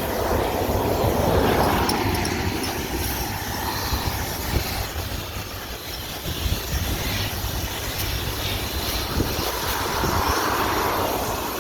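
Outdoor traffic noise: vehicles passing, swelling into a rush about a second in and again near the end, over a steady low rumble. No siren sounds.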